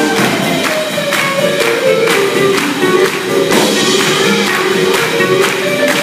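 Live swing band playing an up-tempo tune, with guitar and a drum kit keeping a steady beat.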